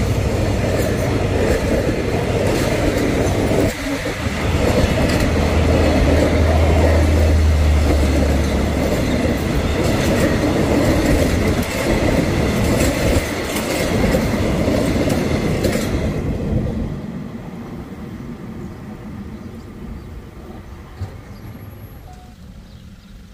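Passenger coaches of a diesel-hauled train rolling past, wheels clattering over the rail joints, with the low drone of the CRRC CDA5B1 diesel-electric locomotive under it for the first several seconds. The rolling noise dies away after about sixteen seconds as the train moves off.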